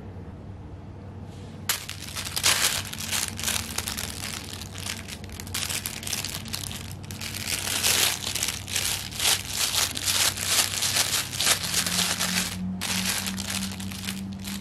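Fabric crinkle toy crinkling in uneven bursts as it is squeezed, shaken and nosed by a Yorkie puppy, starting about two seconds in.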